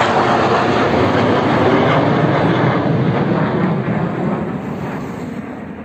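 Jet fighters passing overhead: a broad jet-engine roar that holds steady, then fades away over the last few seconds as the aircraft draw off.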